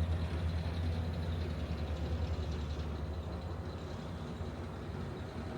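Steady low engine rumble from a large vessel's engines, easing slightly toward the end, with a faint high hum above it.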